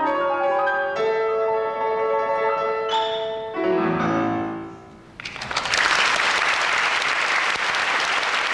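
Solo grand piano playing the closing bars of a piece, ending about three and a half seconds in on a low final chord that rings and fades away. Just over a second later audience applause breaks out and continues.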